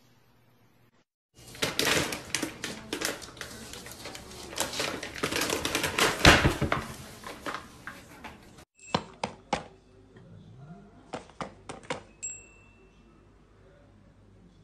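Paper bag crinkling and rustling in a dense run of crackles as a cat drags and tugs at it. After a cut, a few separate sharp clicks and taps.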